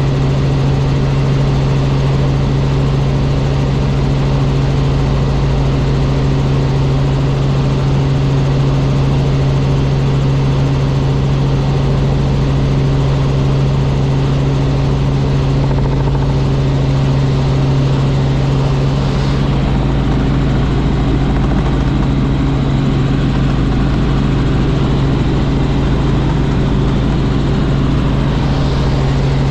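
Robinson R44 Raven II helicopter's engine and rotors running in flight: a steady, unchanging drone with a strong low hum.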